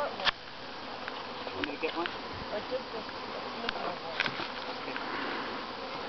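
Honeybee swarm buzzing steadily as many bees fly around a top bar hive they have just been shaken into, with a few faint clicks over the hum.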